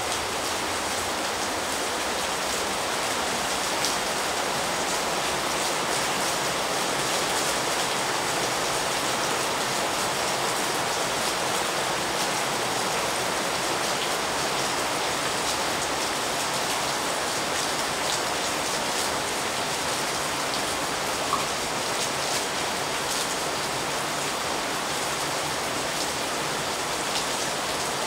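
Heavy rain falling steadily, an even wash of water noise with no letup.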